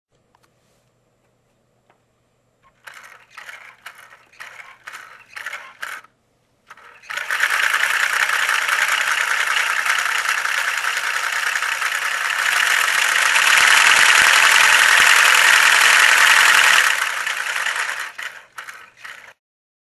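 Large LEGO model in-line four-cylinder engine's plastic pistons, push rods and camshaft clattering as its crankshaft turns. It starts with slow separate strokes, then runs fast and steady for about ten seconds, getting louder partway through, and slows back to separate strokes before stopping.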